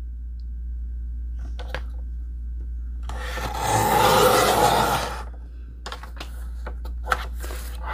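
Fiskars paper trimmer's sliding blade head cutting through a strip of cardboard in one scraping stroke of about two seconds, from about three seconds in, with a few light handling clicks around it.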